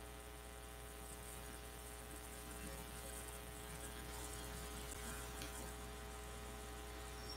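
Steady electrical mains hum with a buzz, faint, from the recording setup, with faint soft scratching of a paintbrush on canvas above it.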